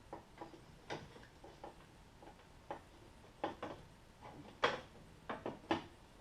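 Scattered clicks and light knocks of car door trim parts being handled and fitted back into place, a few sharper knocks near the end.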